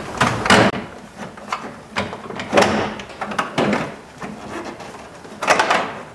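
Plastic interior door trim panel being pushed and knocked into place on a pickup's door: a series of separate knocks, scrapes and rustles of plastic against the door, several in a row and one more near the end.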